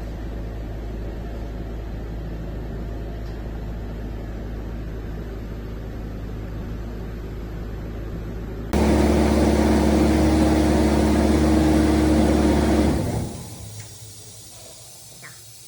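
Diesel engine of a portable screw air compressor idling steadily, then running suddenly louder with a strong hum about nine seconds in, before winding down and stopping at the end of its shutdown countdown about four seconds later.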